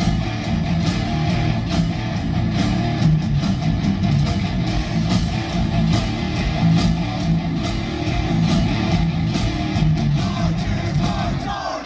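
Heavy metal band playing live: loud distorted electric guitars and bass driving a chugging riff over regular drum hits, with a brief break in the low end just before the end.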